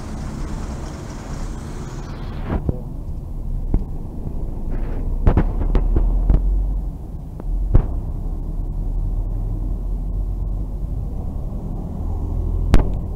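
City buses and car traffic passing close by, a deep engine rumble. About two and a half seconds in, the hissy upper part of the traffic noise cuts off abruptly, leaving mostly the low rumble with a few sharp clicks.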